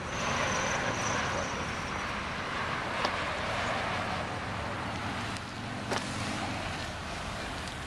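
Small Ford hatchbacks driving slowly across a car lot: low engine and tyre noise under a steady outdoor hiss, with two short sharp clicks about three and six seconds in.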